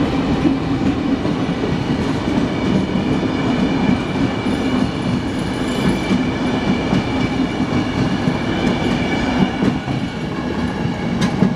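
Train running on the rails with a steady rumble, overlaid by a steady whine of several high tones and a couple of sharp clicks from the wheels near the end.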